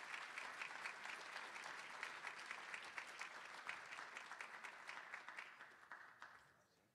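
Audience applauding: many hands clapping steadily, then thinning out and fading away near the end.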